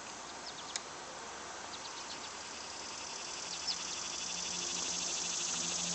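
Insects trilling outdoors in a steady, fast pulsing chorus that grows louder over the second half, with a few short high chirps scattered through it. A low pulsing hum comes in about halfway.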